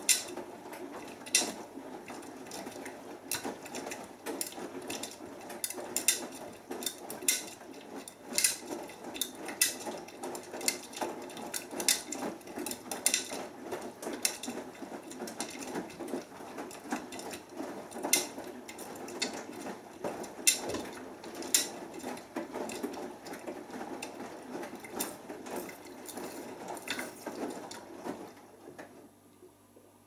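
Beko WMB81445L front-loading washing machine tumbling a wet load in the main wash of a cotton 40°C cycle: a steady churning and swishing of clothes in the drum, with frequent sharp clicks and knocks. It stops near the end as the drum pauses.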